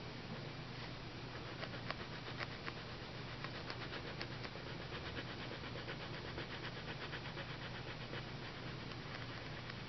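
Colored pencil scratching on sketchbook paper in quick back-and-forth colouring strokes, faint, several strokes a second, over a low steady hum.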